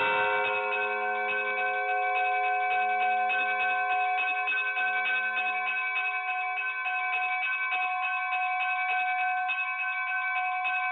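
Bells ringing in rapid, even strikes that blend into a steady ring of several pitches at once.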